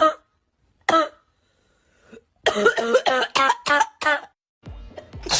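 Short, voiced coughs: one at the start and another about a second in, then a run of about six quick coughs from about two and a half seconds in.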